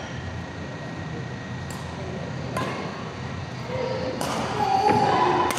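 Badminton rackets smacking a shuttlecock in a rally: four sharp hits about a second apart, in a large reverberant hall. Short higher-pitched tones come in near the end, the loudest part.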